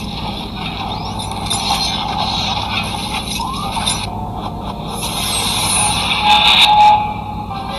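Sound effects of an animated video intro: hissing whooshes and crackles over a steady low drone, swelling to a louder crackling burst about six seconds in, then settling.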